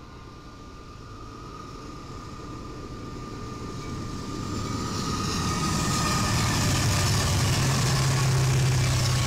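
Union Pacific freight train's diesel locomotives approaching on the main line, growing steadily louder, with a steady low engine drone strong near the end.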